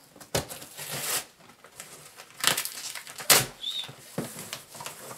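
A large cardboard box being handled and worked open: rustling and scraping cardboard, with four louder scrapes or flaps, the loudest a little after three seconds in.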